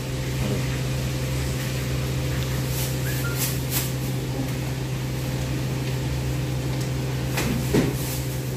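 Steady low mechanical hum of kitchen and cooling equipment, with a few light clicks and rustles about three seconds in and again near the end as an order is handled and bagged.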